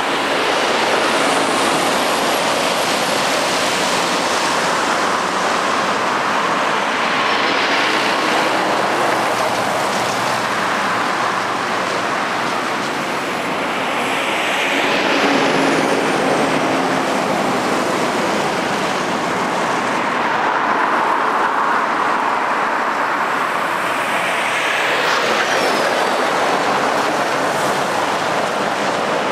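Road traffic passing: cars and articulated lorries driving by, a continuous rush of tyre and engine noise that swells as each vehicle goes past, most strongly about halfway through and again about three-quarters through.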